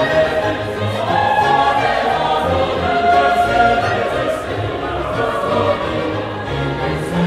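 Background choral music: a choir singing slow, held notes.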